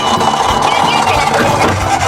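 Background music with a steady beat, mixed with a dense, buzzing electronic toy-ambulance siren sound.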